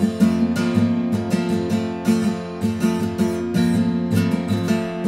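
Acoustic guitar strummed in a steady rhythm, an instrumental passage between sung verses.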